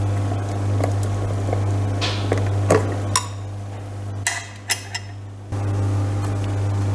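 Small electric motor of a 3D-printed tea stirring machine humming steadily, with several sharp clinks of a spoon against a cup. The hum drops away for about two seconds midway, then comes back.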